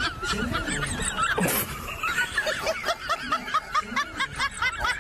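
Someone laughing in a long run of quick, high-pitched giggles.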